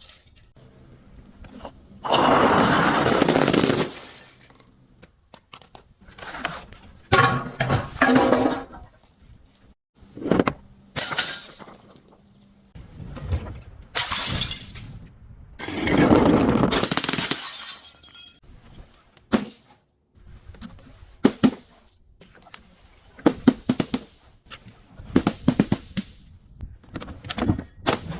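Glass bottles being crushed and breaking: a run of separate crunching, shattering episodes, two of them lasting about two seconds each. Quicker sharp cracks and clinks follow near the end.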